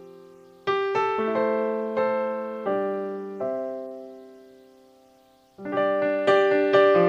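Solo piano music, slow and gentle: a phrase of struck notes that rings and fades out, then a new, louder phrase begins about five and a half seconds in.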